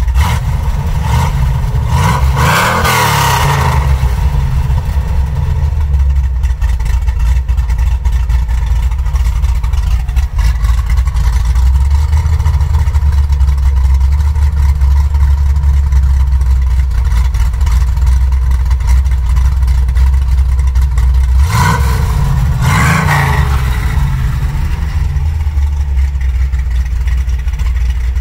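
1970 Dodge Dart Swinger's freshly overhauled engine, fitted with a new intake, idling with a steady deep exhaust rumble at the tailpipe. It is revved up and let back down twice, about two seconds in and again about twenty-two seconds in.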